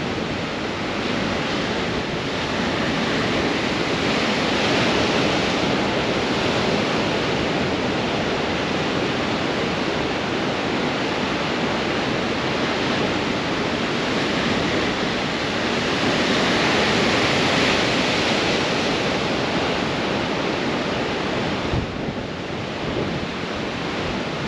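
Ocean waves breaking against rocks in a strong wind, a continuous rush of surf and spray. It swells twice, about five seconds in and again around seventeen seconds, and eases briefly near the end.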